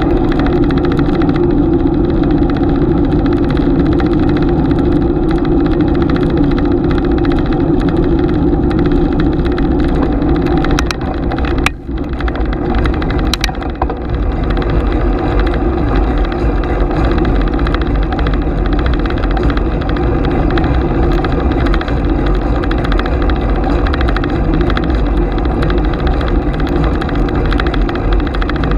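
Riding noise from a bicycle picked up by a GoPro: a steady, loud rush of wind and tyre rumble. About halfway through it eases briefly, with a few sharp clicks.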